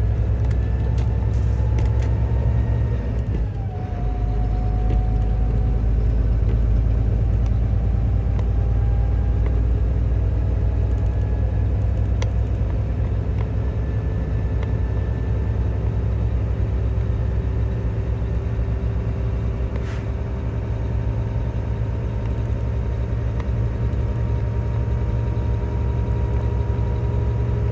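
Semi-truck diesel engine running under way with a steady low drone. Its pitch drops about three to four seconds in, then slowly climbs again and holds.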